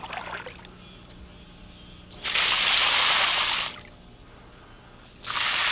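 Liquid porcelain clay slip poured by the bucketful through a sieve, splashing in two rushes of a little over a second each, about three seconds apart.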